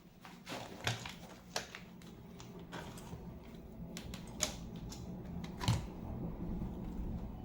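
Irregular plastic clicks and taps of a mechanical keyboard being handled and taken apart, about five louder clicks among softer ones, over a low steady hum.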